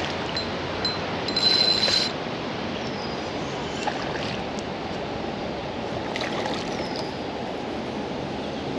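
Steady rush of flowing river water, with a brief louder high-pitched sound about a second and a half in and a few faint high chirps.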